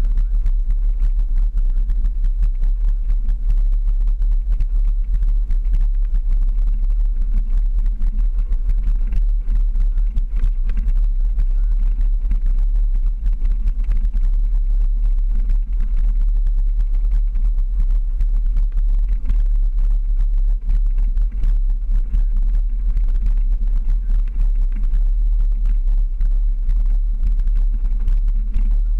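Jeep driving slowly over a rough gravel trail, heard through a hood-mounted camera: a steady low rumble of engine and wind with many small knocks and rattles from the bumpy, rocky surface.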